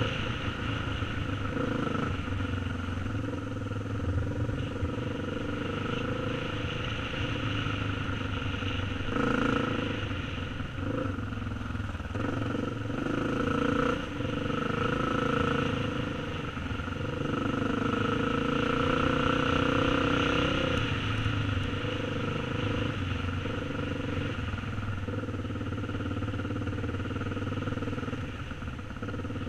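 Yamaha TT350 dirt bike's four-stroke single-cylinder engine running under way, its note rising and falling as the throttle is opened and closed, loudest for a few seconds past the middle.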